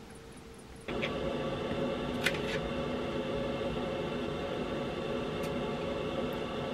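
A steady machine hum, like a fan or heater running, starts suddenly about a second in and holds evenly. A few light clicks come over it.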